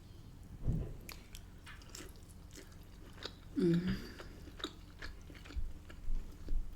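Close-miked wet chewing and lip smacks of someone eating rotisserie chicken in Cajun butter sauce, with a short hum from the voice about three and a half seconds in.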